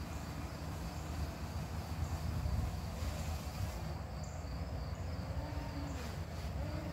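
Insects buzzing steadily over a low, continuous rumble.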